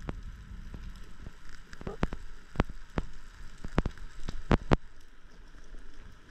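Underwater ambience recorded through a camera housing: sharp, irregular clicks and crackles about a dozen times over a faint hiss, with a low rumble of water movement fading out in the first second or so.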